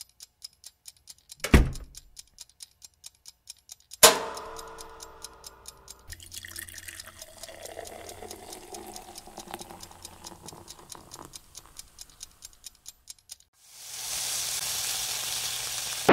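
Experimental sound-collage soundtrack: steady clock-like ticking at about four ticks a second, a sharp hit about a second and a half in, and a louder struck hit at about four seconds whose tones ring and fade. A steady rushing, water-like noise comes in near the end.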